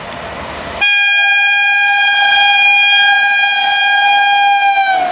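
WAP-7 electric locomotive horn sounding one long, steady blast of about four seconds, starting about a second in, its pitch sliding down at the end as the locomotive passes at speed. Beneath it, before the blast, the rumble of the approaching train grows louder.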